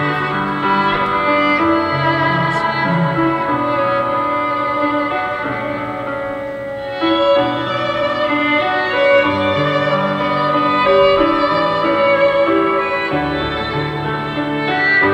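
Instrumental music with a violin carrying a melody of long held notes over a soft accompaniment; a new, slightly louder phrase comes in about halfway through.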